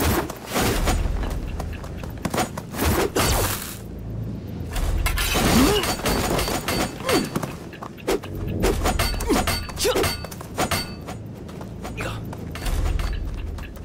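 Sound effects of a staged sword fight: a fast run of hits, whooshes and shattering crashes, with heavy low thuds at several points.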